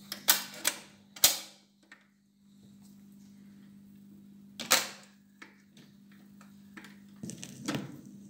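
Zenith D-587 automatic record changer running through its change cycle over a steady low hum. Clicks come first as the start lever is pushed, a loud clack about halfway through is the 45 dropping from the overarm spindle onto the platter, and a few knocks near the end come as the tonearm swings over and sets down on the record.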